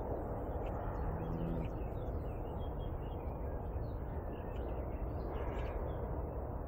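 Outdoor pasture ambience: a steady low rumble of wind on the microphone, with faint scattered bird chirps and calls.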